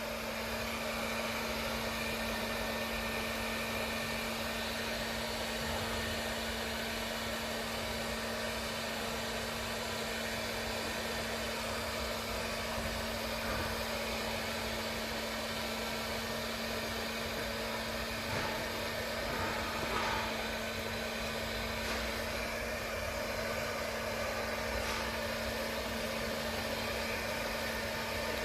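Electric hair dryer running steadily while drying a freshly washed dog's coat: a continuous rush of air over a steady motor hum.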